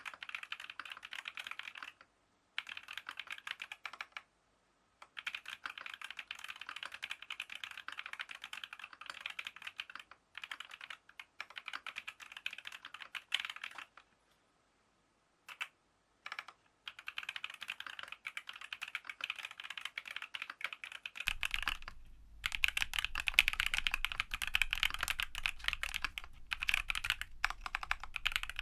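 Fast typing on a Geon F1-8K mechanical keyboard with lubed TTC Holy Panda tactile switches, aluminium plate, foam dampening and PBT dye-sub keycaps: dense runs of keystrokes broken by brief pauses. From about three-quarters of the way in the typing gets louder and a low hum runs underneath.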